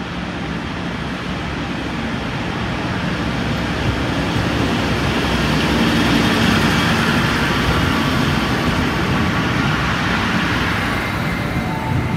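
NSW TrainLink Endeavour diesel railcar set running slowly past along the platform, its diesel engines humming under the rolling of the wheels. The sound builds to its loudest about halfway through as the cars go by, then holds steady.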